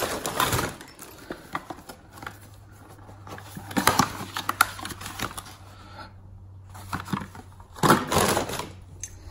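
Brown paper bag rustling and crinkling as a hand rummages in it, with a small cardboard box being handled and its flaps opened, giving scattered clicks and taps. The rustling comes in three bursts: at the start, about four seconds in and about eight seconds in.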